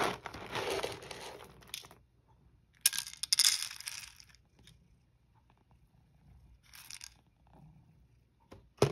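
Three bursts of rustling and rattling from cat food being readied, the first about two seconds long, with a sharp knock at the very end.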